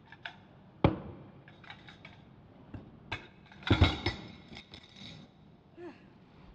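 Plates clinking and clattering as they are stacked and set down on a table: a sharp clack about a second in, and the loudest run of clatters, with a short ring, just past the middle.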